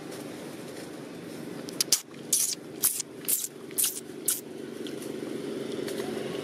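About seven short, sharp crackles of dry leaves and twigs, roughly two a second, from about two seconds in to about four and a half seconds in, over a steady low rumble.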